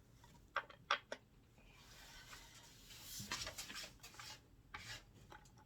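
Plastic chair parts being handled: a few sharp clicks and knocks, then a couple of seconds of scraping and rattling, as caster wheels are tried in the sockets of a computer chair base and fail to connect.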